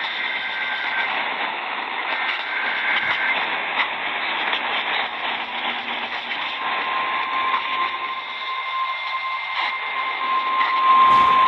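Radio receiver hiss and static. A steady high tone fades in about two-thirds of the way through and grows louder near the end.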